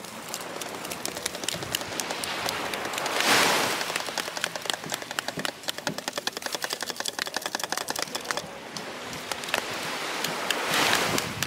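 Plastic sand moulds and shovels scraping and tapping in dry sand close by, with sand trickling: a steady crackle of many small clicks. Two louder rushes of hissing noise come about three seconds in and near the end.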